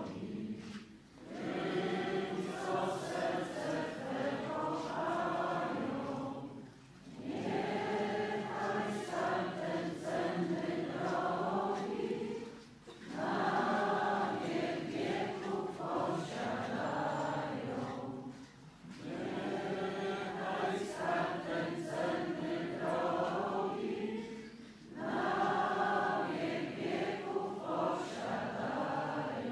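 A group of voices singing a Polish hymn to Jesus in slow phrases of about six seconds, each ending in a short pause for breath.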